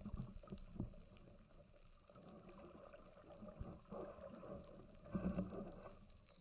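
Muffled water sloshing and gurgling heard through an underwater camera housing near the surface, with louder swishes about four seconds in and again near the end, over a faint steady high whine.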